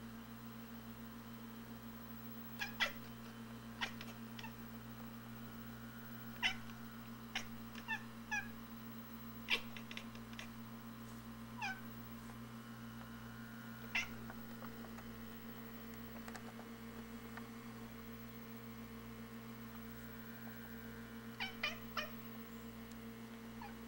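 Tabby domestic cat chattering at a robin seen through a window: short, high chirping calls, singly or in quick clusters of two or three, spaced a few seconds apart, the excited hunting chatter a cat makes at prey it cannot reach. A steady low hum runs underneath.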